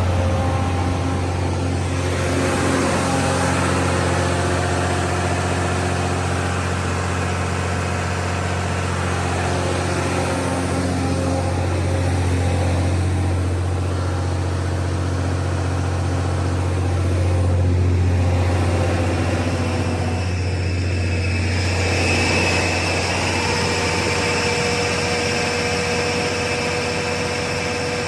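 600kW Generac diesel generator set running steadily at its constant 1800 rpm, a deep, even hum with no change in speed. About three-quarters of the way through, a higher steady whine joins in.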